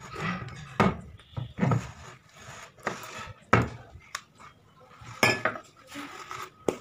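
Glass rum bottle, steel jigger and glass tumbler being handled and set down on a tabletop: several sharp knocks and clinks, one ringing briefly, with rustling handling between them.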